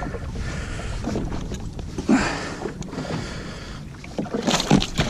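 Seawater splashing and sloshing around a fishing jet ski, with wind buffeting the microphone; the splashing swells briefly about two seconds in.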